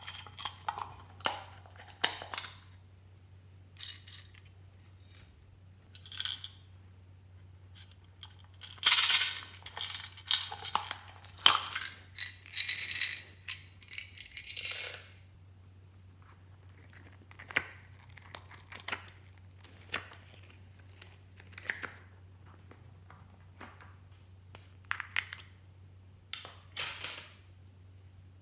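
Small plastic containers being handled and plastic beads tipped onto a tray of slime: scattered clicks and rattles, with a longer, louder run of rattling beads about nine to fifteen seconds in.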